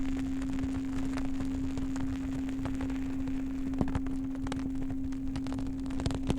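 A low singing bowl holding one steady ringing tone, over a crackling wood fire with irregular sharp pops, one louder pop about four seconds in.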